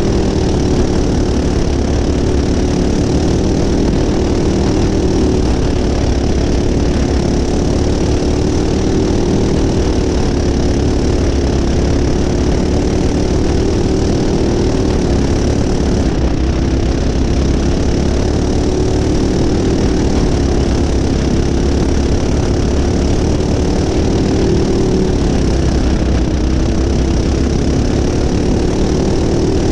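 Racing go-kart's single-cylinder Predator engine running hard under the onboard camera, its note dipping and rising slightly as the revs change around the track.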